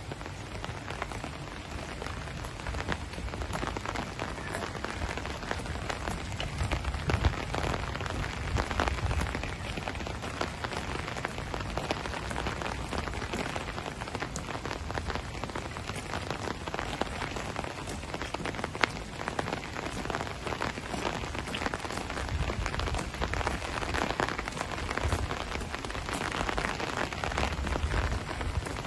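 Heavy, steady rain falling on pavement and parked cars, a continuous hiss full of fine drop ticks.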